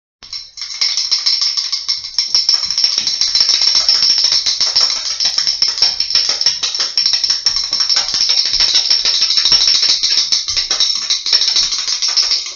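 Hand-held percussion shaken rapidly and continuously, a dense jingling rattle that comes in about half a second in and keeps going without a break.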